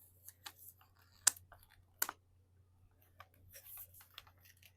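Plastic toy packaging being handled and opened by hand: scattered light clicks and taps, with two sharper snaps about a second and two seconds in and a brief rustle near the end.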